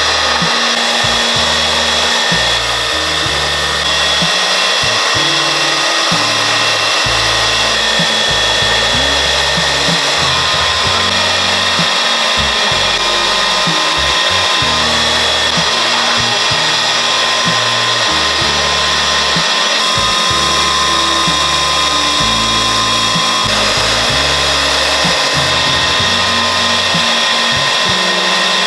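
Electric motor running steadily without a break, with a continuous high whine, consistent with a machine grinding soybeans for tofu.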